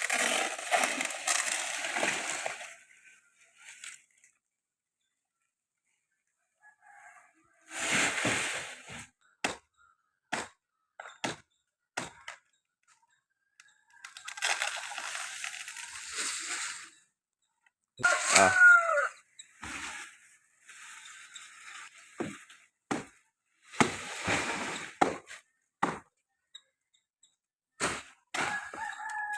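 Work on a coconut tree: irregular sharp cracks and knocks, with several longer rustling, crashing spells like cut fronds coming down. About eighteen seconds in, a rooster crows once, a call that falls in pitch.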